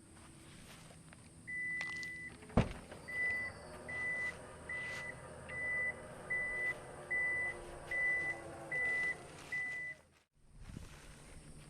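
A vehicle reversing, its engine running under a high reverse-warning beep that repeats a little over once a second, the first beep longer than the rest. A sharp click comes about two and a half seconds in.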